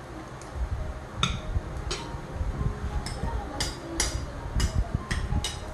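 Metal spoons and forks clinking and scraping against ceramic plates, a sharp ringing clink every half second or so, over low thumps from handling the dishes.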